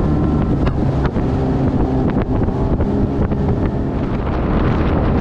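Outboard motor running at speed on a small boat, a steady engine drone with wind buffeting the microphone and frequent sharp knocks.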